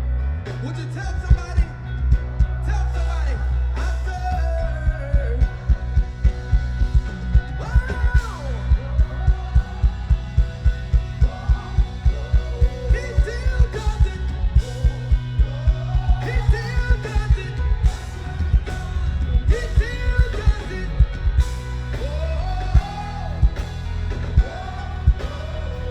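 Live gospel band playing loud, with heavy bass and a steady drum beat, and a voice singing over it.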